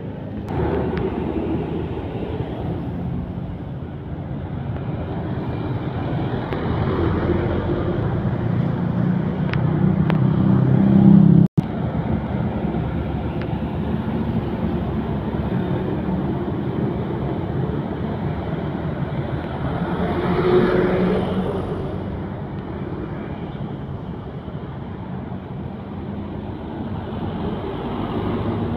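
Busy street traffic: diesel trucks and motorcycles passing close, with engine and tyre noise. A heavy vehicle pass builds to the loudest point about ten seconds in and cuts off abruptly. Another vehicle rises and fades about twenty seconds in.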